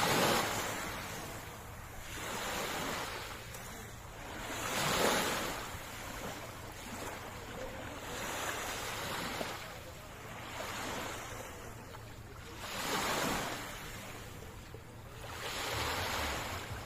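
Sea waves breaking and washing up the shore, the surf rising and falling every few seconds, with the biggest surges at the start, about five seconds in and about thirteen seconds in.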